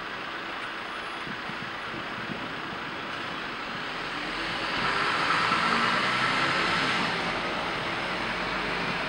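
A car passing on the street below, its tyre and engine noise building to a peak about five to seven seconds in and then fading.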